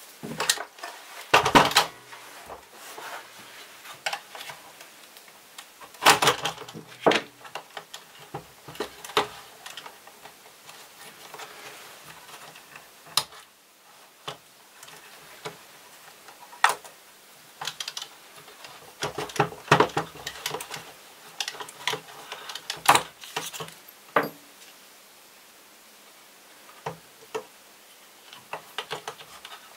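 Irregular clicks, knocks and rattles of the plastic housing and parts of a Vorwerk VR100 robot vacuum being handled and pulled apart during disassembly, with a quieter pause shortly before the end.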